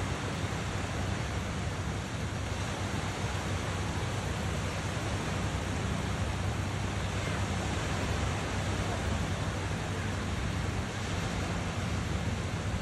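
Steady wash of small surf waves with wind on the microphone, and a low steady hum underneath.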